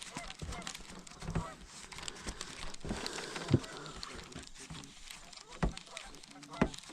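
Scattered honking animal calls over a crackling, rustling background, with three sharp knocks about three and a half, five and a half and six and a half seconds in.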